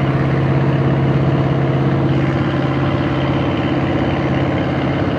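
Boat engine running steadily at constant speed: an even, unbroken low hum with a slight rapid pulse.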